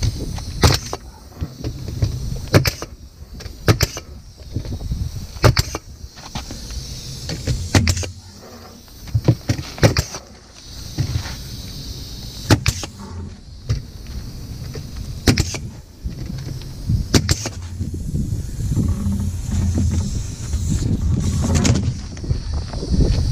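Pneumatic framing nailer firing nails through new plywood roof decking: about a dozen sharp shots at irregular intervals, a few in quick succession about ten seconds in. A steady low rumble runs underneath.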